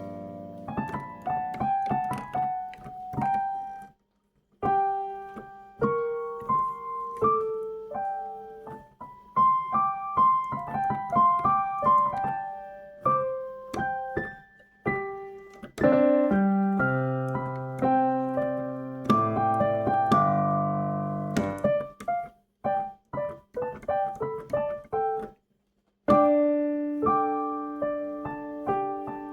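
Piano music: single notes and chords struck and left to ring, with a few short pauses, one about four seconds in and a longer one past the middle.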